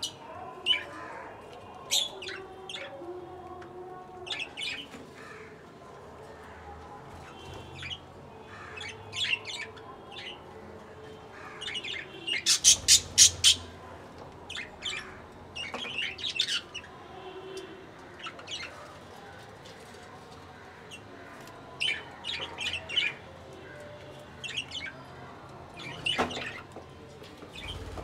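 Budgerigars chirping and squawking in short, sharp calls scattered throughout, with a quick run of about six loud calls about halfway through.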